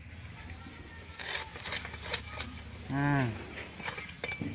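A few light knocks and scrapes, then about three seconds in a man's voice makes one short low sound that rises and falls in pitch.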